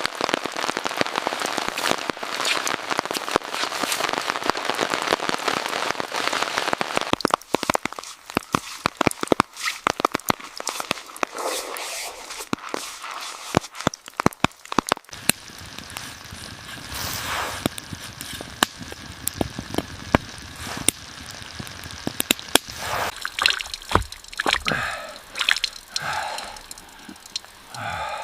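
A dense hiss thick with sharp pops for the first several seconds, then scattered sharp clicks and drips over a quieter hiss.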